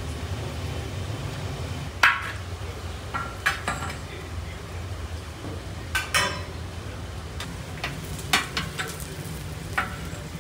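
A long-handled metal skimmer scraping and clanking against a large kazan as fried meat is lifted out of hot oil, with about eight sharp strikes at uneven intervals, the loudest about two seconds in. Under this runs the sizzle of frying and a steady low rumble.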